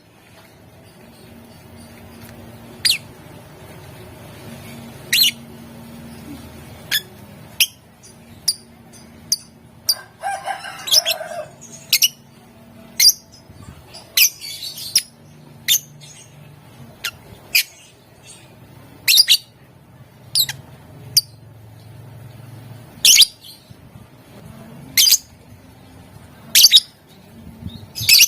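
Lovebird calling: sharp, short, high-pitched chirps at irregular intervals, roughly one every second or so, with a rougher chattering burst about ten seconds in. A faint low hum runs underneath.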